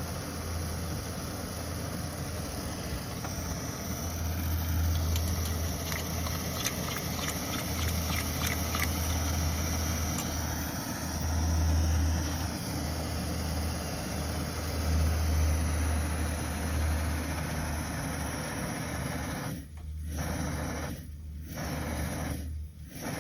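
1984 Coleman 400A white-gas stove burning at full flame: a steady burner roar with a low, wavering rumble, the sign of a generator working normally again after its broken cleaning needle was restored. A run of faint ticks comes a few seconds in, and the sound drops out briefly three times near the end.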